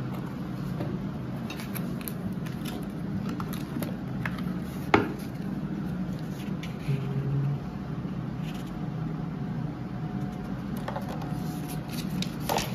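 Handling noises from paper inserts and sticker sheets being taken out of a camera carrying case: light rustles and small taps, with a sharp tap about five seconds in and a few more near the end, over a steady low hum.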